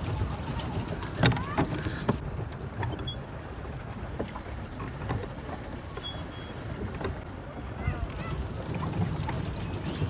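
Water churning and lapping around a plastic pedal boat as it is pedalled along, with wind buffeting the microphone and a few sharp knocks in the first two seconds.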